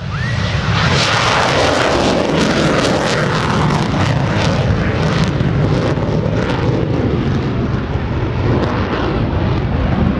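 F-14D Tomcat's twin General Electric F110-GE-400 turbofans running in afterburner: a loud jet roar that swells over the first second, then holds steady with a crackle running through it.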